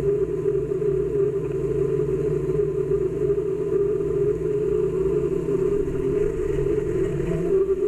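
Steady droning hum over a low rumble, the background bed of an air traffic control radio recording in a gap between transmissions.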